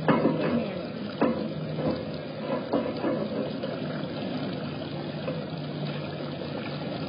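Small rock waterfall pouring steadily into a pond. A jaguar standing in the water adds a few sharp splashes in the first three seconds, the loudest just at the start and about a second in.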